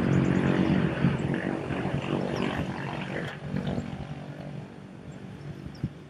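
A motor engine running steadily as a low hum, loudest over the first few seconds and then fading. Faint short bird chirps sound over it.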